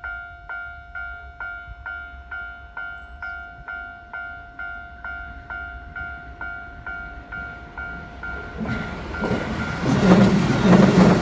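Japanese level-crossing warning bell ringing a steady two-tone ding, about two strikes a second, warning that a train is approaching. About nine seconds in, a Keio Line train arrives and passes close by, its wheels clattering loudly over the still-ringing bell.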